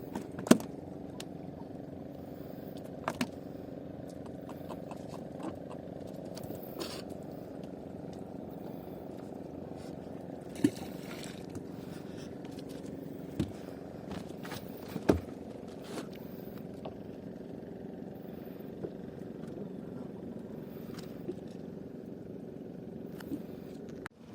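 Fishing boat's engine running steadily, with a few sharp knocks and clicks here and there.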